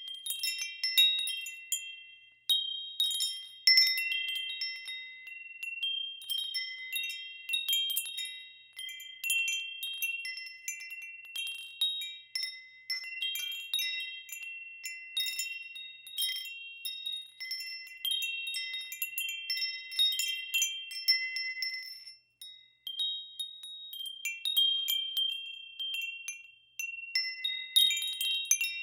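Wind chimes ringing in the wind: irregular, overlapping strikes of a few high, clear pitches, each left to ring out, with a short lull about three quarters of the way through.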